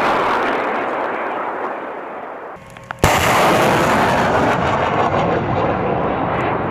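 M270 multiple launch rocket systems firing rockets. A loud rushing noise from a launch fades over about two and a half seconds. About three seconds in a sharp blast comes as another rocket fires, and its steady rush of noise carries on.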